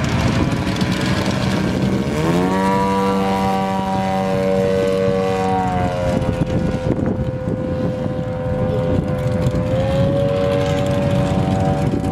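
Remote-control airplane's engine and propeller droning in flight, the pitch climbing about two seconds in, holding, dropping back around the middle, then climbing again near the end as the throttle or the plane's path changes. Steady background noise runs underneath.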